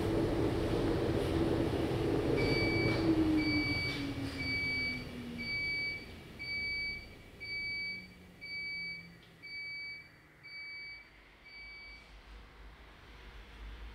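A commercial laundromat machine's drum slowing down, its motor hum falling steadily in pitch. Over it come about ten short, high beeps, one a second, ending near the close: the machine signalling that its cycle has finished.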